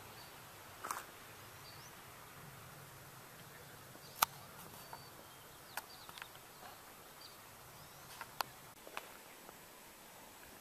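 Quiet mountain-trail ambience: a faint steady hiss with about seven sharp, irregularly spaced clicks, the loudest about four and eight seconds in, and a few faint short high chirps.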